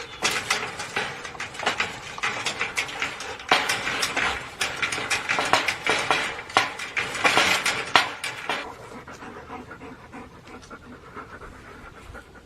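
Dog panting in quick, repeated breaths, which fall much quieter about two-thirds of the way in.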